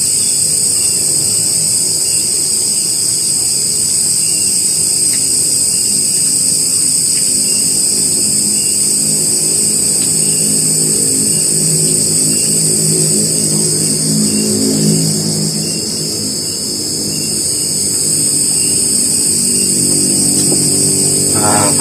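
An engine running steadily, its pitch wavering and briefly louder a little past the middle, with a steady high-pitched whine above it.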